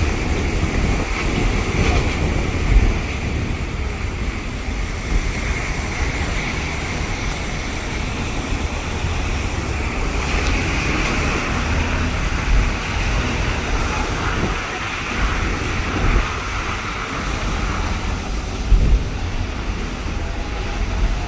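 Waterfall's steady roar of falling water, with wind buffeting the microphone in an uneven low rumble.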